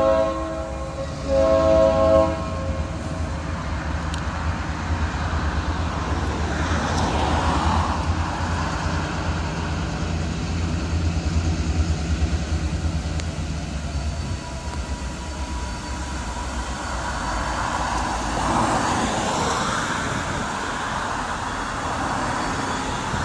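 Diesel freight locomotive sounding its horn: the tail of one blast and a second short blast in the first two seconds. Its engine follows with a steady low rumble that fades about two-thirds of the way through, under a rushing noise that swells and eases twice.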